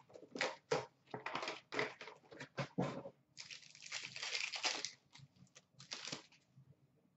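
A trading-card box and its packs being handled and a pack wrapper ripped open: a run of short crinkling crackles, then a longer stretch of tearing and crinkling about three and a half seconds in, then a few more crackles.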